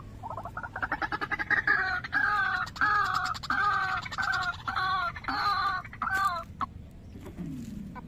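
White-breasted waterhen calling: a rising opening note, then about a dozen identical repeated calls, a little over two a second, stopping about six and a half seconds in.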